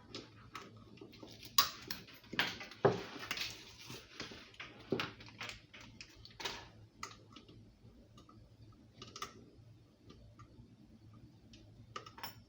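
Irregular clicks and knocks of faucet fittings and hoses being handled while the faucet's water supply hoses are connected by hand, busiest in the first half and sparser later.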